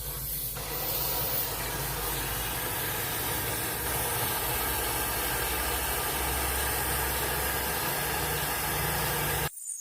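Truck diesel engine running steadily, with a strong hiss over it. The sound cuts off suddenly near the end.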